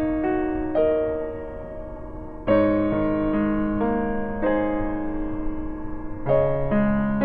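Background music: slow piano chords, each struck and left to ring before the next.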